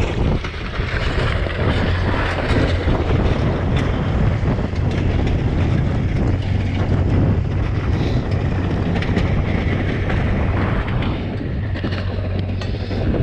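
Wind on the microphone over the steady low drone of a Kubota utility vehicle's engine idling, with scattered crunches of boots on broken ice.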